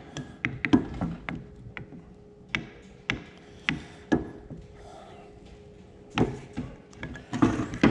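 A tractor engine's aluminium piston and its heavy connecting rod handled on a workbench: about a dozen irregular sharp clinks and knocks as the rod is turned and the piston is set down, with a quiet spell in the middle.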